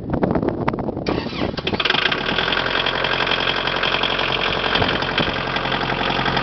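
A vehicle engine cranking with an uneven chugging, catching about a second in, then settling into a steady run.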